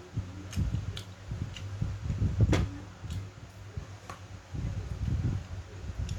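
Eating sounds: irregular low chewing and mouth noises with a scattering of short clicks and taps, the loudest about halfway through, over a steady low hum.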